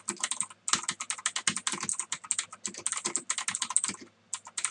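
Loud mechanical computer keyboard typed on fast: a dense run of clicky keystrokes, with a short pause about half a second in and another near the end.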